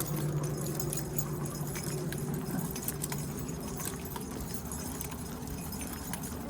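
Footsteps and dogs' paws on pavement, with collar tags and leash hardware jingling, as a pack of leashed dogs walks along. A low steady hum sounds under it for the first couple of seconds.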